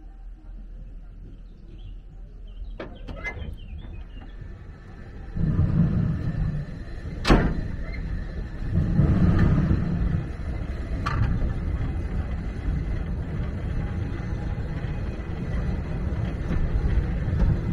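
Passenger carriage of a steam-hauled heritage train getting under way: a few light knocks, then a low rumble of the wheels on the track sets in about five seconds in and swells twice, with a single sharp clank a couple of seconds after it starts. The rumble then runs on steadily.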